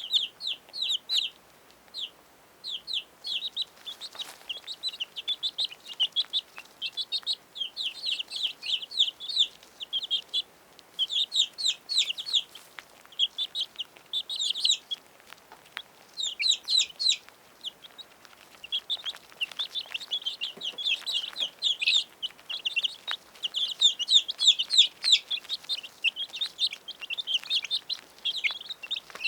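Domestic chicks peeping: rapid, high-pitched short peeps, several overlapping at once, going on almost without a break.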